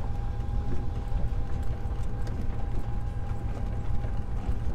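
Pickup truck rolling down a gravel lane, heard from inside the cab: a steady low rumble with scattered rattling clicks.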